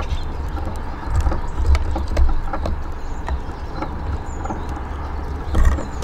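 Eurasian siskins pecking seed and hopping on a wooden bird table: scattered sharp taps and clicks over a steady low rumble, with a brief high chirp about four seconds in.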